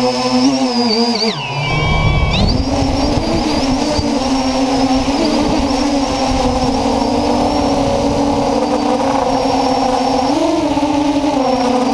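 FPV quadcopter's brushless motors and propellers whining, heard from the drone's onboard camera. The pitch slides down about a second in, then holds steady over a low rushing noise, rising briefly near the end.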